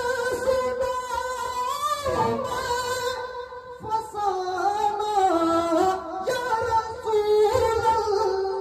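A man singing a naat into a microphone, drawing out long wordless held notes that slide up and down.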